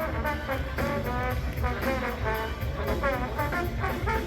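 Trombone playing a solo with slides between notes, over a live band whose drums keep a steady beat with regular cymbal ticks.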